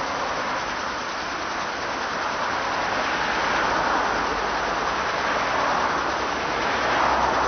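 Steady rushing of flowing water from a fast stream and a mill waterwheel, an even hiss that swells slightly now and then.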